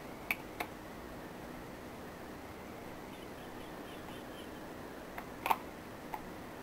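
A few sharp light clicks from small plastic eyeshadow pans and cases being handled: two near the start and three close together about five to six seconds in. They sit over a faint steady room hiss.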